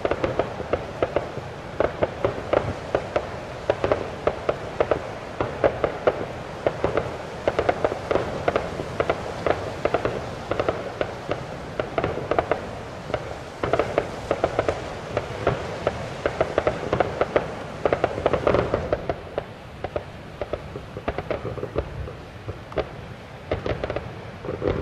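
Fireworks bursting in a dense, rapid run of bangs and crackles, several a second; the barrage grows softer and thinner about three-quarters of the way through.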